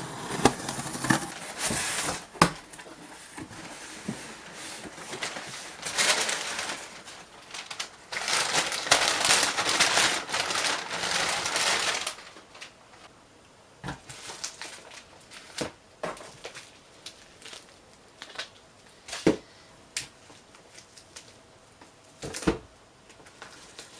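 A cardboard box being opened and its packaging handled: bursts of rustling and crinkling through roughly the first half, then scattered light knocks and clicks.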